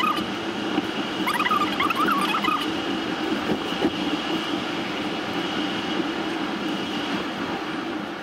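Road and tyre noise inside the cabin of a Mercedes-Benz EQC electric SUV driving at speed: a steady rushing hum with no engine sound. A run of short high chirping squeaks between about one and two and a half seconds in.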